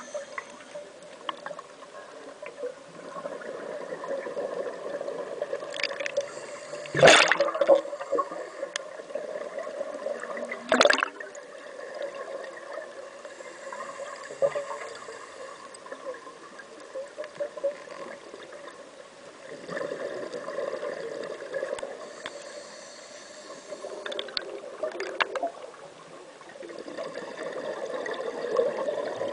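Scuba divers' exhaled air bubbles gurgling and bubbling, heard underwater. Two sharp knocks cut through it, about seven and eleven seconds in.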